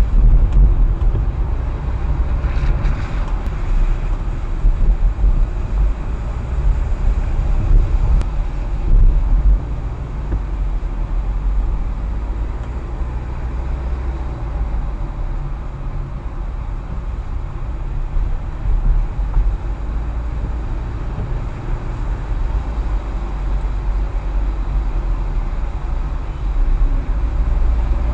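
Low steady rumble of a car driving slowly in traffic on a wet road, heard from inside the cabin.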